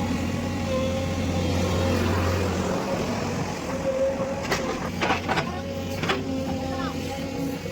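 Sany SY210 excavator's diesel engine running steadily, with a low drone and a steady whine over it; about halfway through, a handful of sharp knocks come in quick succession.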